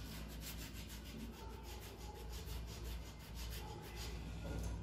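A new carbon brush for an angle grinder rubbed back and forth by hand on a flat abrasive in quick, even strokes. It is being filed down on its sides so that it slides freely in its brush holder.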